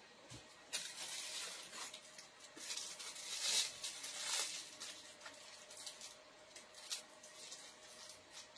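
Faint rustling and light knocks of handbags being picked through and handled, in irregular spells with a few small clicks.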